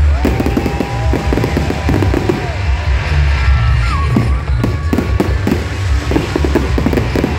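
Fireworks display at full barrage: dense crackling and repeated bangs over deep booming, with whistles gliding up and down in pitch.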